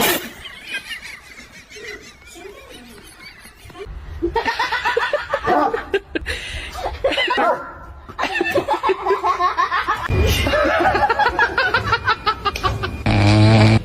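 People laughing in several bursts of chuckling and snickering. A short, steady low droning sound comes near the end.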